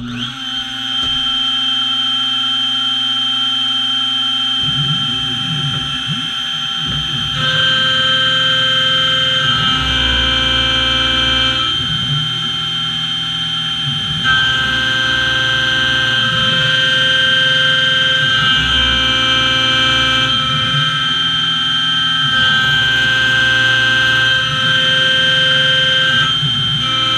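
Small CNC mill running a 1/4-inch end mill through an aluminum block, with a steady, high, whining spindle tone. The pitch pattern shifts a few times as the toolpath changes.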